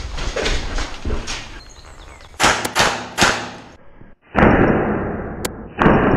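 Airsoft guns shooting in clips cut together: three sharp snaps in quick succession about two and a half seconds in. After a cut comes a loud rushing noise with a couple of single sharp clicks.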